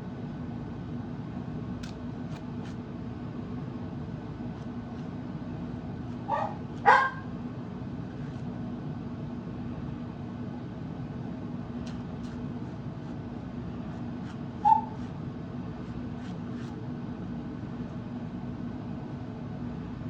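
Pet dog barking: two quick barks about six and a half seconds in, then one short yip about eight seconds later, over a steady low hum.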